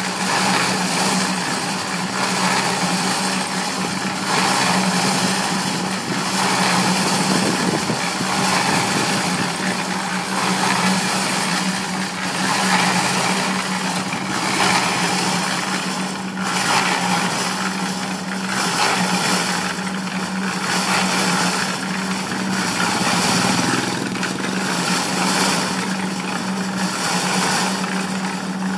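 Small electric drum-type concrete mixer running: a steady motor hum under the rattling churn of the turning drum, swelling and easing every couple of seconds.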